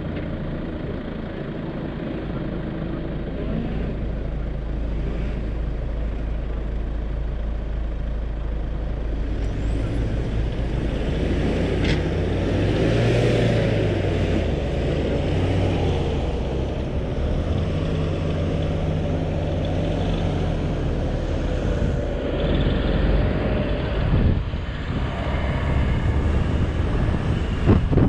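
4x4's engine running under load while driving through soft sand dunes, its pitch rising and falling with the revs around the middle, with a sharp knock near the end.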